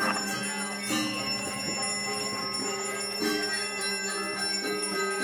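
A Balinese priest's brass handbell (genta) ringing on and on through the temple prayer, its high ringing tones held steady, over lower pitched tones that change step by step about every second.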